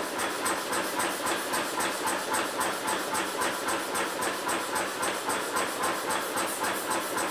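Power hammer striking red-hot steel held in a tong-forging jig, a fast, even run of blows, several a second.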